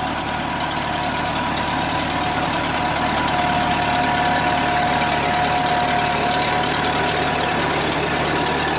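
Vintage tractor engine running steadily under load as it pulls a reaper-binder through standing crop, with the binder's cutting and conveying mechanism clattering alongside. A steady high whine sits over the engine throughout.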